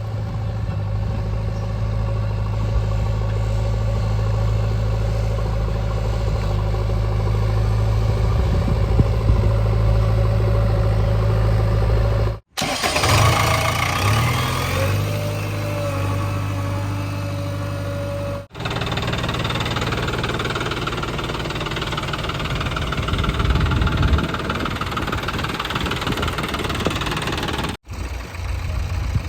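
JCB 3DX backhoe loader's diesel engine running as it works, its pitch shifting up and down as it is revved in the middle stretch. The sound breaks off for an instant three times.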